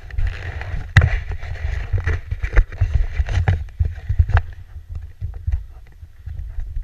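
Uneven low rumble and handling noise on a helmet-mounted action camera's microphone, with scattered knocks and clicks as riders shift in a stationary bobsled; the sharpest knock comes about a second in.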